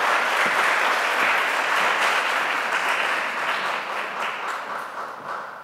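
Audience applauding, the clapping steady at first and dying away near the end.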